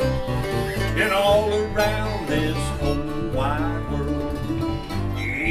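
Old-time string band playing an instrumental break: acoustic guitars strumming a steady rhythm under a picked string lead.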